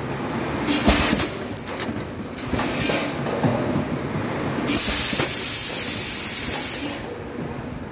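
PET bottle blow-moulding machine running, a steady mechanical clatter with sharp knocks as the preform carriers move along. About halfway through comes a loud hiss of air that lasts about two seconds and then cuts off.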